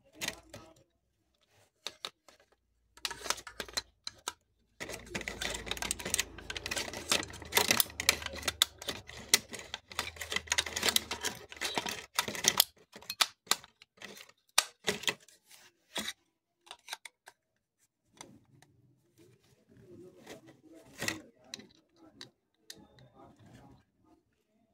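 Rapid plastic clicks, taps and rattles as a small plastic mini desktop vacuum cleaner is handled and a part is pushed into it. The clicking is densest for the first half and thins out to scattered clicks after that.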